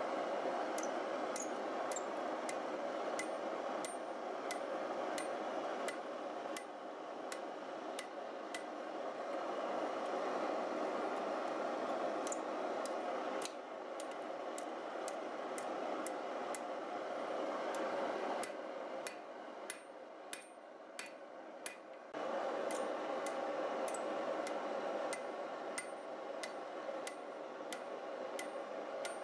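Light taps and clinks of steel on steel as a red-hot bar is hammered and bent over an anvil horn with tongs: many faint, sharp, irregular strikes with a short high ring. They sit over a steady rushing background noise that thins for a few seconds past the middle.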